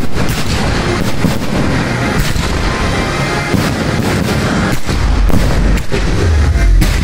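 Aerial fireworks shells bursting in rapid succession, many bangs overlapping, over music with a steady bass that comes up again about five seconds in.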